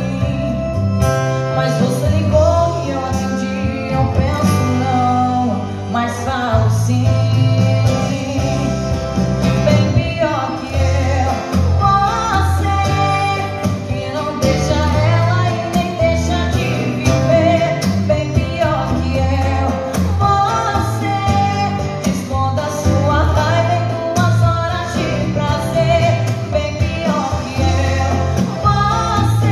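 A woman singing a sertanejo song into a microphone, accompanied by a strummed steel-string acoustic guitar, in a steady, continuous melody line over the guitar's chords.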